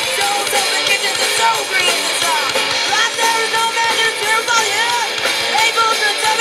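Live rock band playing: a female lead vocal sung over electric guitars, bass guitar and drums.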